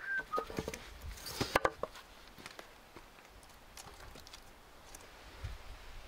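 Split firewood being handled with a hatchet: a cluster of sharp wooden knocks and clacks in the first two seconds, the loudest about a second and a half in, then only faint ticks. A short high whistle-like note sounds at the very start.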